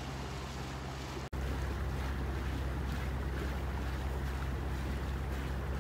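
Motorboat engine running steadily underway, a low drone under wind and water noise. The sound cuts out for an instant about a second in and comes back slightly louder.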